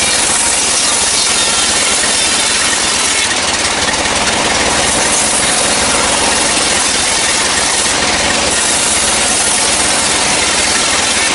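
Sawmill band saw running loudly and cutting through dry kruing timber: a steady, dense rasp of the blade over the noise of the machine's drive.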